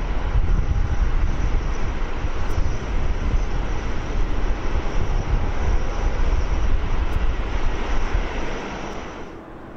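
Jet airliner engines running steadily as the aircraft taxis, a deep rumble under a broad hiss. It eases off near the end and drops away abruptly at a cut.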